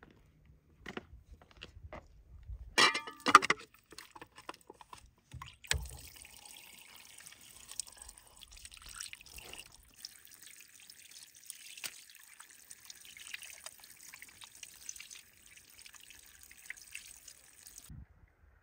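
Water poured from a plastic scoop over raw chicken pieces in a tray, splashing and trickling as the pieces are rinsed by hand. A few clicks and a loud clatter come first, then the water runs steadily and stops suddenly near the end.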